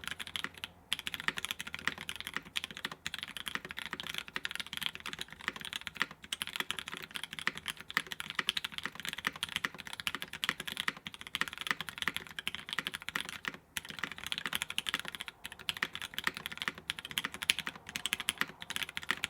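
Fast, continuous typing on a custom mechanical keyboard, an Ahgase TKL with lubed Gateron Giant switches, an aluminum plate on a double o-ring mount and GMK keycaps. Dense key clacks with short pauses near one second in and again about fourteen seconds in.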